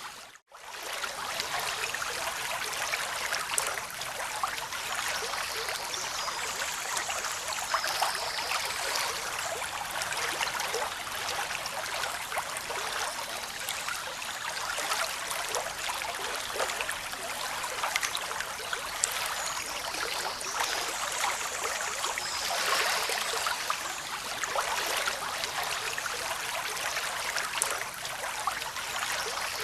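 Running water, a steady splashing, trickling babble with no rise and fall of waves. It cuts out for a fraction of a second about half a second in.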